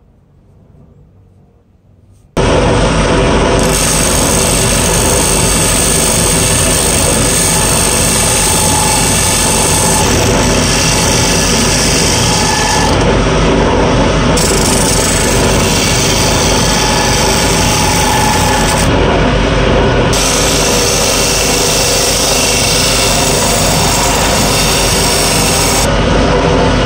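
Wood lathe running with a grit-coated metal abrasive plate held against the spinning wooden cone, a loud, steady grinding of grit on wood. It starts abruptly about two seconds in.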